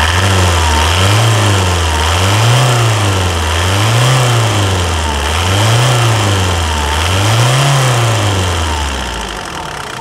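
Mitsubishi 4D56 2.5-litre four-cylinder turbodiesel revved up and back down about six times in an even rhythm, then settling lower near the end. The engine runs smoothly and the valve noise is gone after a valve clearance adjustment.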